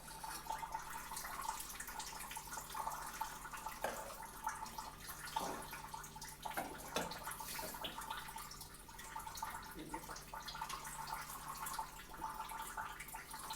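Faint room tone with a low steady hum and a thin steady tone, broken by a few soft, scattered taps.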